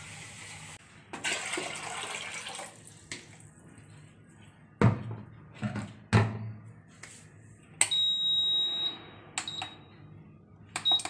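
Water being poured into a pot, then two knocks against the pot or counter, then an induction cooktop's control panel beeping: one long beep about eight seconds in, followed by short beeps as its buttons are pressed.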